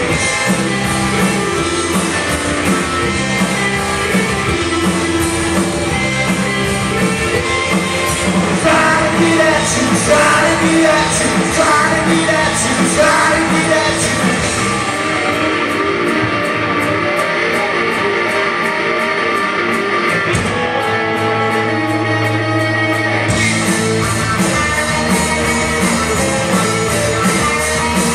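Live rock band playing loudly with a singer, electric guitar and drums, heard in a large room. About halfway through, the high end of the mix drops away for several seconds and then comes back in full.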